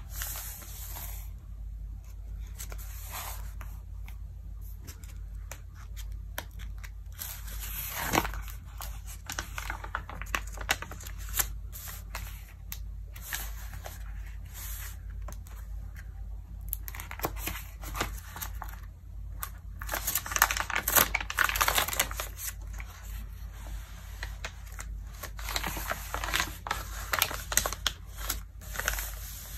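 Glossy Vogue magazine pages handled and turned by hand: irregular crinkling and rustling of paper, with a louder, denser stretch of crinkling about two-thirds of the way in.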